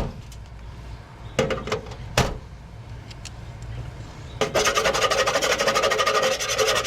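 A few sharp clicks, then a small electric motor, like a handheld power tool, runs steadily for about two and a half seconds with a fast even ticking.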